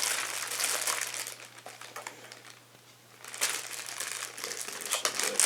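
A plastic zip-top bag crinkling as it is handled, in two spells with a short pause between them about two and a half seconds in.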